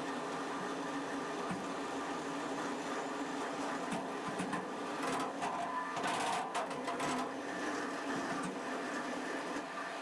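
Supreme vertical feed mixer's twin augers turning in the steel tub: a steady mechanical hum, with chopped feed scraping and rattling against the metal, busier for a few seconds in the middle.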